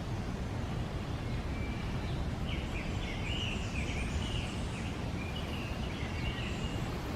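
A bird calling in a quick warbling run of high notes from about two and a half seconds in until near the end, over a steady low rumble.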